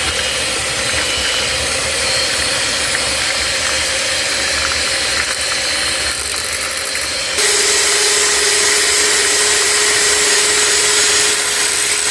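Electric mixer running steadily as it whips boiled potatoes with butter and sour cream into creamed potatoes. About seven seconds in, its hum drops slightly in pitch and grows a little louder.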